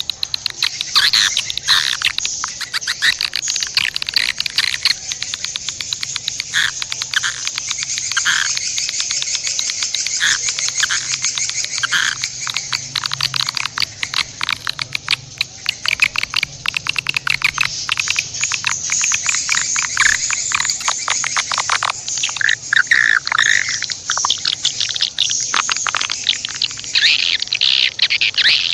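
A dense, continuous chorus of rapid high-pitched chirps, twitters and clicks from many small animal callers, with no pause.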